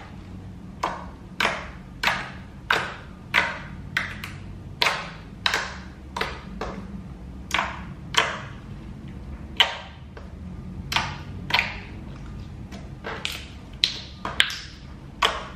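Slime being squeezed and folded by hand, making a steady run of sharp clicks and pops from trapped air bubbles, roughly one to two a second.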